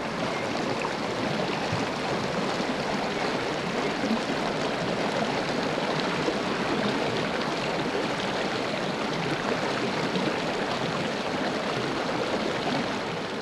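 A shallow, rocky forest stream rushing steadily over stones: an even wash of water noise.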